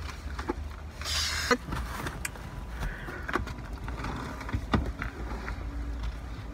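Quiet, steady low rumble inside a car cabin, with scattered faint clicks and rustles of a folded paper flyer being handled, and a short hiss about a second in.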